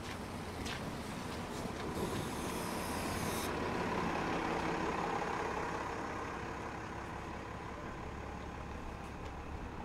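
City transit bus driving past close by, its engine noise swelling and then easing off. About two seconds in, a short hiss of air from its brakes cuts off sharply.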